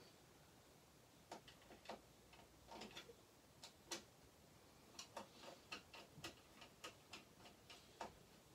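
Faint, irregular small clicks and light taps of a Remington 700 rifle's action and Magpul stock being handled and fitted together.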